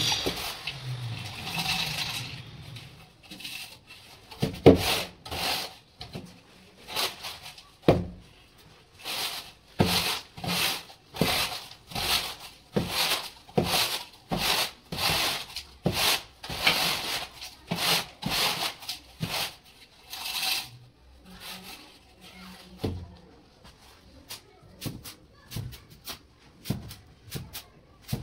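Aluminium straightedge dragged back and forth across a bed of sand-cement mortar to level it for floor tiles: a regular series of rasping scrapes, about one and a half a second. In the last few seconds the strokes turn fainter and quicker.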